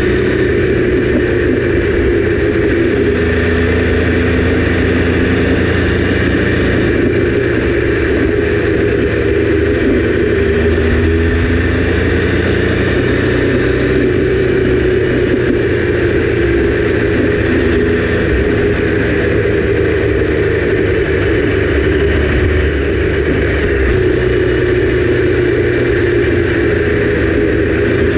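Triumph Daytona 955i's inline three-cylinder engine running at a steady cruise, its pitch shifting slightly a few times, over a steady rush of wind at the bike.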